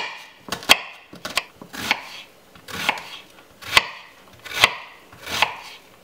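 Chef's knife slicing an onion, each cut ending in a sharp knock on a bamboo cutting board, a little more than one cut a second with fainter clicks between.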